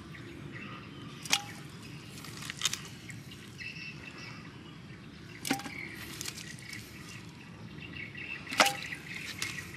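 About five sharp knocks as limes, a knob of root and lemongrass stalks are dropped one after another into an unglazed clay pot and hit its inside, some knocks with a short ring.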